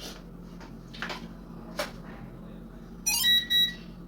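A few light handling clicks, then two short electronic beeps near the end from an SG908 quadcopter powering up and initialising after its gimbal control board was replaced.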